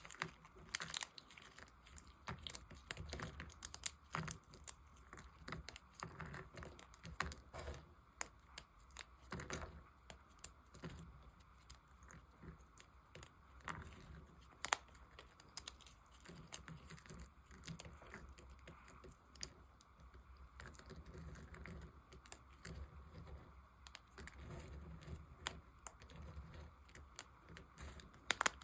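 A blade cutting and carving dry bar soap, making a run of irregular, crisp crackles and clicks.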